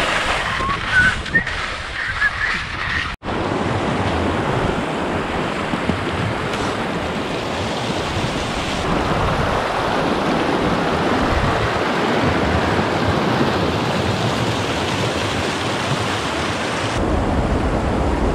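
Skis sliding through snow with wind on the microphone, then, after a sudden cut about three seconds in, the steady rush of a fast-flowing snowmelt creek close by.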